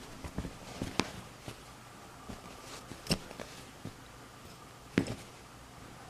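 Irregular light taps, knocks and scuffs as a kitten bats and paws at a pencil on a carpeted surface, with the sharpest knocks about one, three and five seconds in.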